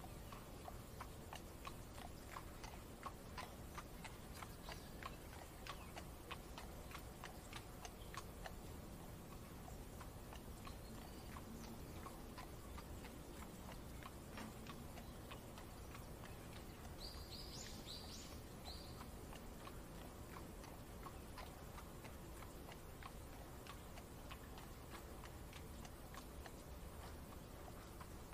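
Horse hooves clip-clopping in an even walking rhythm, heard faintly from inside a carriage over a steady low rumble of rain. A short, high chirping sound breaks in about two-thirds of the way through.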